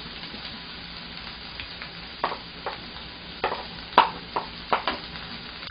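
Diced onion and green onion sizzling in hot oil in a frying pan, a steady hiss. A wooden spatula knocks and scrapes several times in the second half, the sharpest knock about four seconds in.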